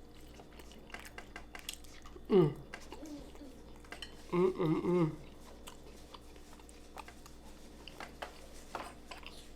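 A person chewing food close to the microphone, with many small wet mouth clicks and smacks. A short falling hum-like vocal sound comes about two seconds in, and another brief vocal sound about halfway through.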